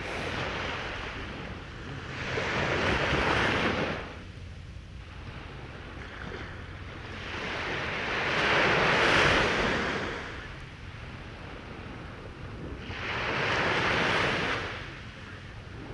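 Small ocean waves breaking and washing up a sandy beach, three times about five to six seconds apart, each a rising and falling rush of surf. A low wind rumble on the microphone fills the gaps between them.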